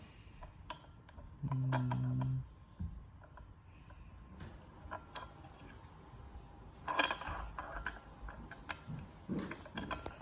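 Small metal ceiling-fan parts (the pin, screws and mounting hardware) clicking and clinking as they are handled and fitted, with a denser run of clinks about seven seconds in. A short, low, steady hum sounds about a second and a half in.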